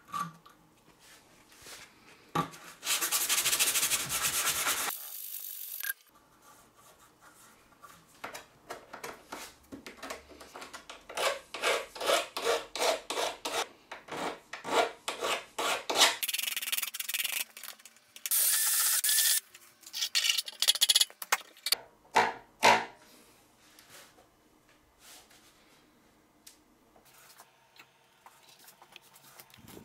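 A sandpaper sponge rubbing on an aluminium flat bar, then a needle file scraping along the bar's edge in quick back-and-forth strokes, smoothing the metal. The strokes stop about three-quarters of the way through, leaving only faint handling sounds.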